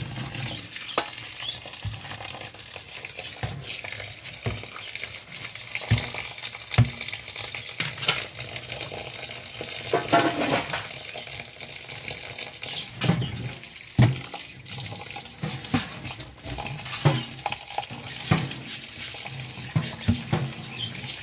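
Tap water running onto cooked spaghetti in a metal tray in a stainless steel sink while the noodles are rinsed by hand. There are scattered knocks throughout.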